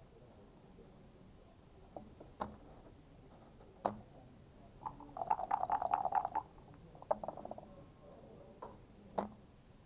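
Backgammon checkers and a game clock clicking, single sharp clacks a few times, with a dense rattle of dice shaken in a cup and thrown onto the board lasting about a second and a half, then a shorter rattle and a couple more clicks.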